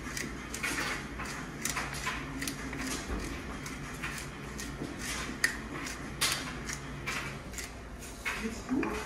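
Pepper mill being twisted by hand over a saucepan: a run of short gritty grinding strokes, about one or two a second.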